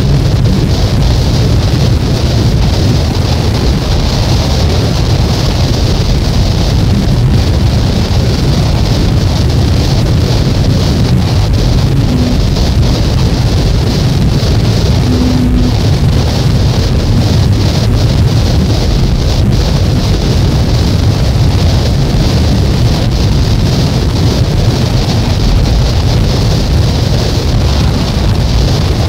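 Steady, loud wall of dense noise from a cassette album recording of experimental noise music, heaviest in the bass with a hissing band up high, barely changing.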